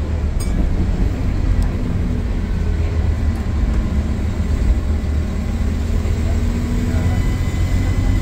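Scania K230UB single-decker bus's diesel engine running as the bus drives: a steady low drone, with faint engine tones rising gently in pitch through the middle.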